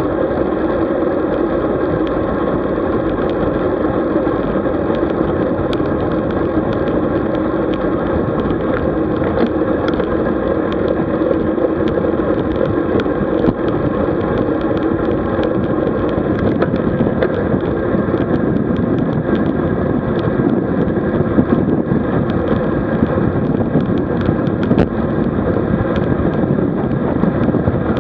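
Steady rush of wind and road noise on a camera carried on a moving road bike, with scattered faint ticks.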